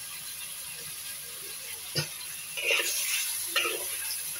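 Chicken feet sizzling low and steady in a wok, then a metal spatula clicks against the wok about two seconds in and scrapes and clatters over the pan a few times as the feet are stirred.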